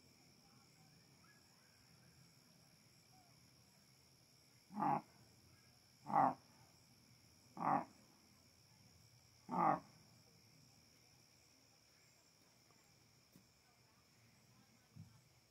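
Coyotes calling from the woods: four short, loud calls about a second and a half apart, starting about five seconds in.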